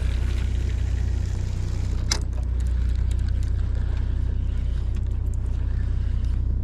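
Steady low hum of a boat's idling engine, with a single sharp click about two seconds in.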